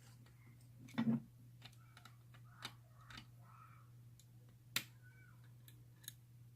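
Lock pick and tension wrench working the five-pin tumblers of a Guard ultra high security padlock: scattered small metallic clicks and faint scraping, the loudest a double click about a second in, over a steady low hum.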